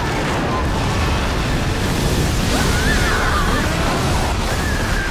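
Dense, steady roar of a raging fire. A high, wavering cry rises over it about halfway through.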